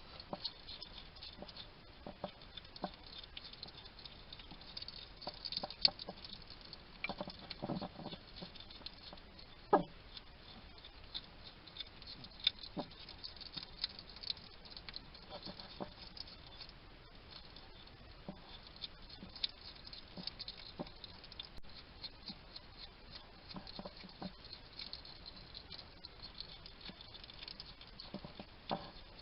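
Wild hedgehog eating close to the microphone: continual irregular crunching and clicking of chewing, with small snuffling sounds and a few louder crunches.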